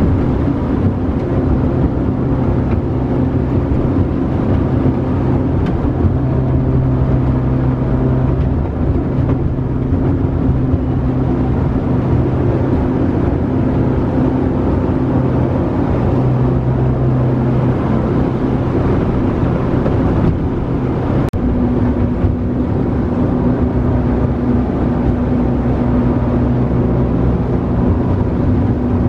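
Jet boat engine running steadily at speed, heard from inside the boat's cabin. Its note shifts slightly higher about two-thirds of the way through.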